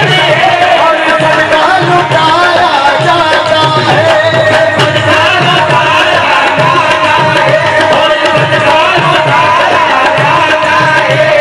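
Qawwali music: harmoniums playing a sustained, ornamented melody over a steady, evenly repeating hand-drum beat.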